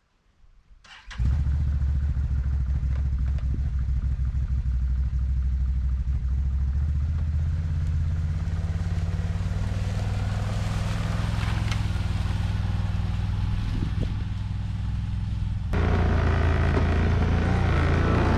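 Can-Am XMR ATV engine running steadily with a low, even note. It comes in abruptly after a second of near silence and gets louder near the end.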